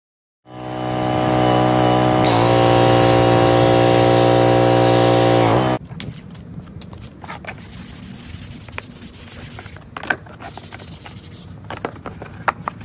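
A motor runs with a loud steady hum and hiss for about five seconds, then cuts off abruptly. After that, a hand brush scrubs a soapy plastic Jeep Wrangler JK fender, with scattered knocks and clicks.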